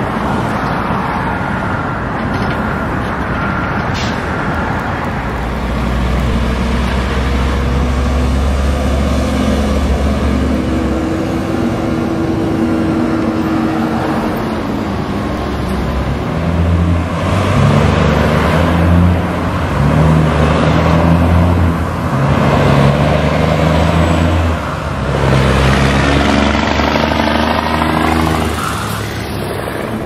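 Heavy diesel dump trucks running and pulling through street traffic, the engine note stepping up and down several times in the second half as they accelerate.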